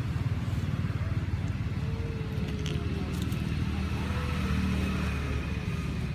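Low, steady rumble of a motor vehicle engine running, with no break or change in pitch.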